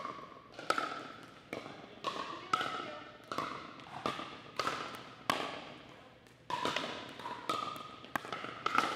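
Pickleball rally: paddles striking the hollow plastic ball in a steady exchange, a sharp pock about every half second to a second. Each hit rings briefly and echoes around the large gym.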